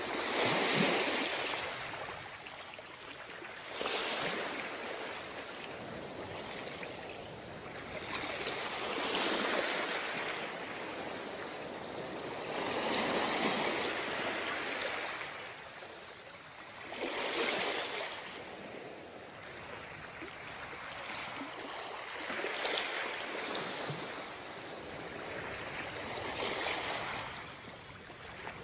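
Ocean surf breaking and washing up the beach. A wave surges in about every four seconds, each one a rush of noise that rises and falls away, about seven in all.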